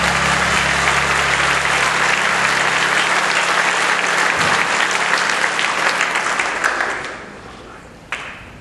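Audience applauding, the applause dying away near the end, with one sharp knock just before the end.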